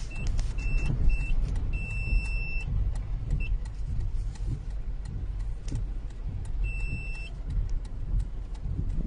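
Steady low rumble of a car's engine and tyres, heard from inside the cabin as the car drives through floodwater.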